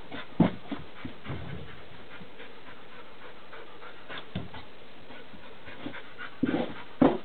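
Bouvier des Flandres bitch panting as she nests in a wooden whelping box before whelping, with scratching and rustling of blankets and short knocks from her paws, busiest near the end.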